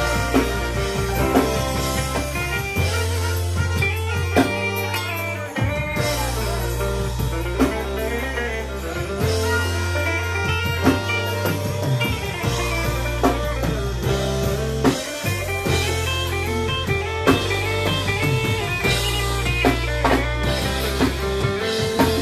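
Live band playing with a steady beat: electric bass holding long low notes under a drum kit and guitars.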